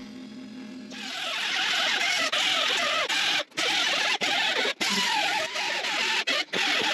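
Small right-angle die grinder grinding down a weld seam on a sheet-steel wheel tub: a harsh hissing whine that starts about a second in and cuts out briefly several times.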